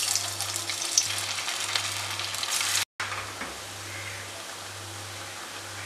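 Vermicelli vadas deep-frying in hot oil, a dense sizzling crackle as the batter balls are dropped in. The sound cuts out briefly near the middle and goes on as a quieter, steady sizzle.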